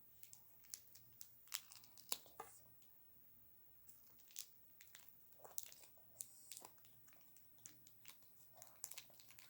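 Faint handling noises: scattered small clicks and soft crinkles, with near silence between them.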